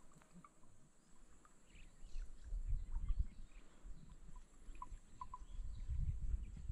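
Faint short animal chirps from the wetland, a few close together about five seconds in, over an intermittent low rumble on the microphone.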